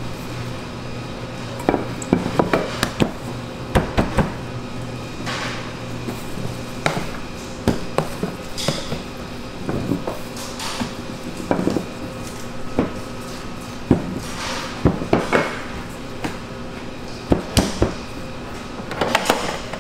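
A wooden rolling pin and gloved hands working bagel dough on a stainless-steel work table, with dough rings set down on a sheet pan: irregular knocks and clacks, some in quick clusters, over a steady faint hum.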